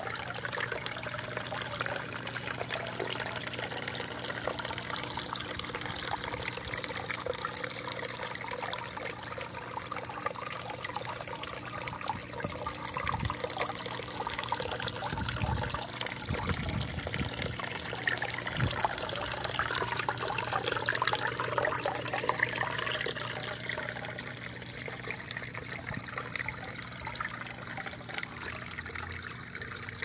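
Lava rock water fountain: a steady trickle of water running from a spout and splashing into a stone basin. It swells a little about two-thirds of the way through, with a few low thumps around the middle.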